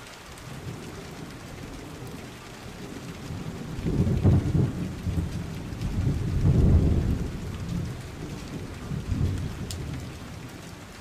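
Steady rain falling with a constant hiss, under rolling thunder that swells in low rumbles several times, loudest around four and seven seconds in.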